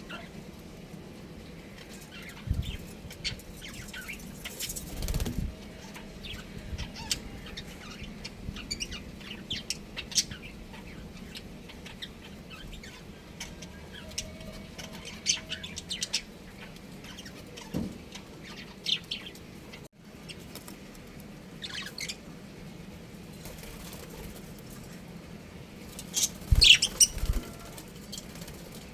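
Pet budgerigars chirping in short scattered calls, with a few bursts of wing flapping; the loudest burst comes near the end.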